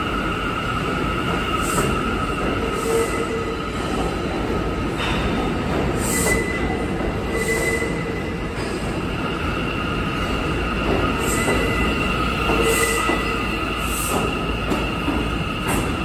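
An R179 New York subway train running past along the platform in an underground station. It makes a steady rumble under several sustained high-pitched wheel squeal tones that swell and fade, with scattered clicks from the wheels.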